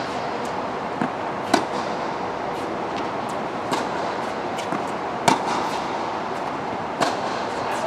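Sharp racket-on-ball hits in a rally, one every second or two, over a steady background hiss.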